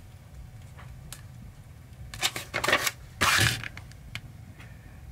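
Paper pages of a printed manual being handled, with a few soft rustles and taps, then a louder brief rustle of a page being turned a little past three seconds in.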